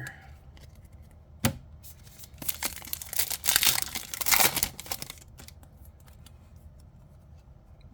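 Trading cards and their plastic packaging being handled: a sharp click about a second and a half in, then crinkling and rustling for about two and a half seconds, loudest near the middle.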